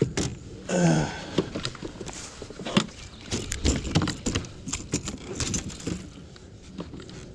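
A short falling vocal grunt about a second in, then a quick irregular run of sharp clicks and knocks: a freshly landed largemouth bass thrashing while it is held, with the treble-hook lure and the boat knocking about.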